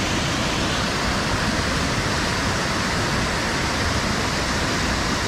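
Steady, even rush of fast-flowing river water.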